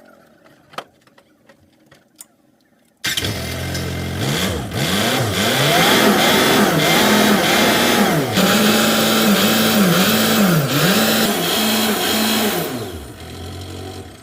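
A few faint clicks, then an engine starts abruptly about three seconds in and is revved up and down over and over, roughly once a second. Near the end it drops back to a lower, steady note and fades.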